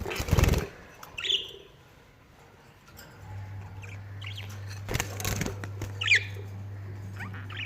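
Parrot giving short chirps, one a little over a second in and a clearer gliding one about six seconds in, with two brief rustling bursts near the start and about five seconds in. A steady low hum starts about three seconds in.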